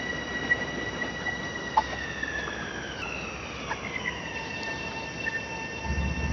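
Long Island Rail Road train pulling into the station: a high whine of several tones falls in pitch about two to four seconds in as the train slows, then holds steady and lower, over a rumble of the train.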